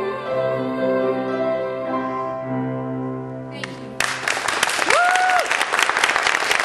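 A female singer holds the song's final note with vibrato over piano chords. Her voice stops about two seconds in and the piano chord rings on. About four seconds in the audience breaks into applause, with one short cheer from a listener just after.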